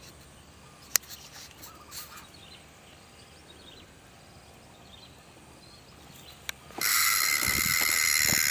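Quiet outdoor ambience with faint bird chirps and a sharp click about a second in, then about seven seconds in a loud, steady, high-pitched buzzing sets in suddenly and keeps on.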